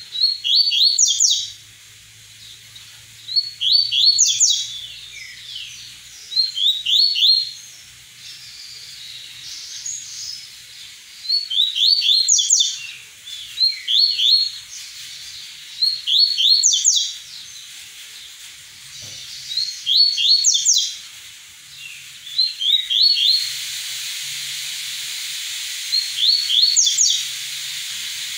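A caged male double-collared seedeater (coleiro, papa-capim) is singing its 'tui-tui' song. Short, high phrases of quick, sharp notes repeat every two to three seconds. A steady hiss joins in near the end.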